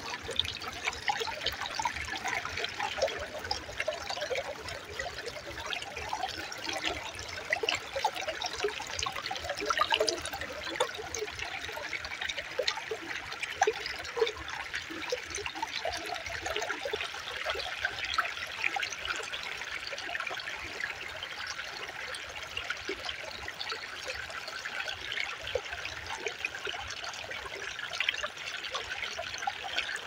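Shallow creek trickling and splashing over rocks: a steady rush of running water with many small splashes.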